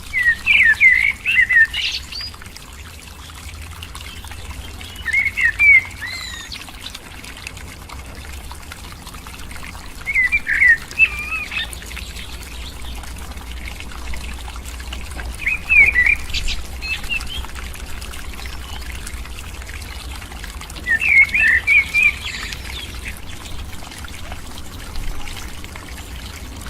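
A songbird singing short, quick warbled phrases, repeated five times about every five seconds.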